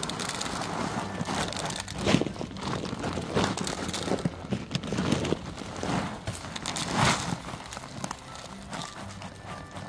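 Large plastic bag of dry dog food crinkling and rustling in irregular bursts as it is handled, loudest about two seconds and about seven seconds in; near the end kibble is tipped from it into a bowl.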